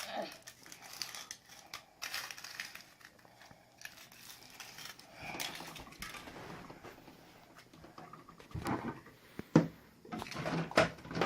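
Foil wrapper of a Kinder Surprise chocolate egg crinkling and tearing as it is peeled off by hand, in uneven bursts, with a sharp knock a little past halfway.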